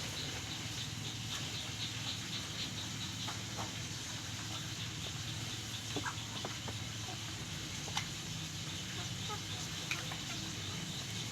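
Chickens in a coop: scattered light clicks and faint short chirps over a steady low hum.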